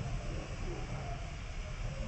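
Steady low rumble with an even hiss, and faint voices in the background.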